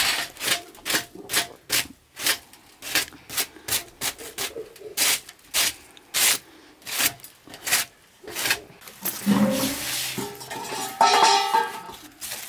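Aluminium foil wrapped around a baked fish crinkling in short, sharp rustles, about two a second, as it is handled and opened. Near the end a louder pitched sound with held tones joins in.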